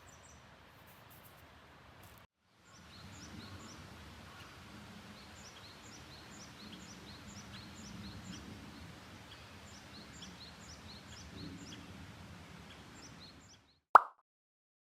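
Forest ambience: a bird calls over and over in short falling chirps, about two a second, over a steady low background. The sound drops out about two seconds in, and near the end comes one short loud sound before it goes silent.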